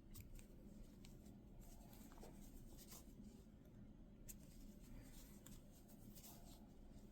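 Faint rustling and light ticks of yarn drawn through loops by a crochet hook, stitch after stitch, while single crocheting around a small piece.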